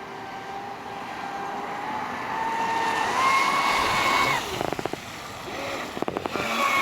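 Traxxas Spartan RC boat's brushless electric motor whining at speed, growing louder and rising slightly in pitch, then cutting off suddenly a little over four seconds in. A few sharp clicks follow, and the whine starts again near the end.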